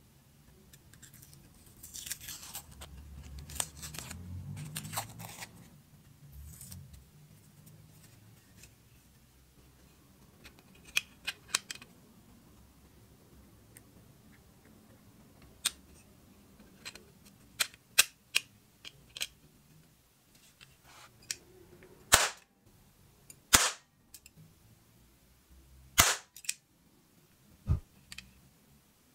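Toy cap-gun revolver loaded with a plastic ring of caps. First comes handling noise, then scattered metal clicks of the action being worked. Late on there are four loud, sharp cap shots a second or two apart.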